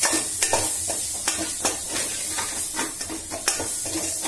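Chopped onions, capsicum and chilli paste sizzling in oil in a stainless steel pan as a spatula stirs them, scraping and knocking against the pan a few times a second over a steady hiss.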